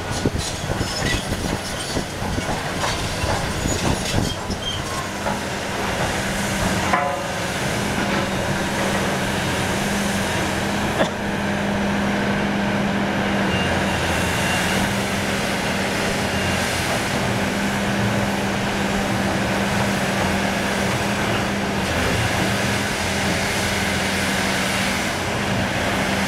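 John Deere excavator working demolition rubble: many knocks and clatters of rubble being shifted in the first several seconds, then its diesel engine running as a steady low drone from about six seconds in, with a few sharp knocks later.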